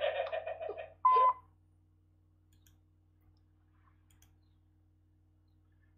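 A single short electronic beep, one steady tone about a second in, right after a brief busy burst of sound. Then near silence with only a faint low hum.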